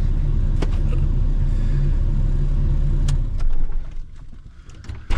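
Toyota Land Cruiser driving, with a steady engine and road rumble. About three seconds in the rumble falls away, leaving a few scattered clicks and knocks.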